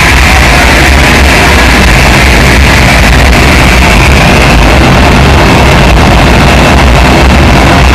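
Loud, dense electronic noise music from a live laptop performance played through a PA: a steady low rumble under a band of hiss, with no beat.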